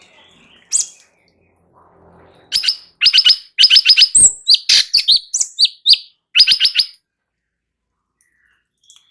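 Cucak cungkok singing loudly: a single short high call, then fast runs of sharp, rattling notes broken by a few short whistled slurs.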